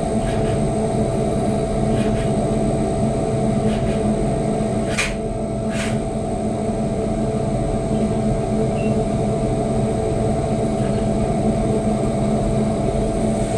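CNC vertical milling machine running, a steady hum with a constant high whine. Two short hisses come about five and six seconds in.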